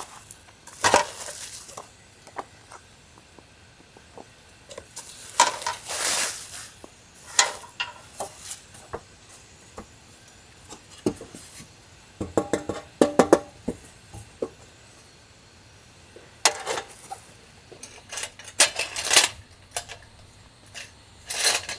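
A folding metal fire-pit plate being handled: rustling of its nylon storage case, then clanks and ringing metallic clinks as the hinged plate is opened out, with a cluster of clinks about halfway through. More knocks and clatters of metal parts follow in the second half.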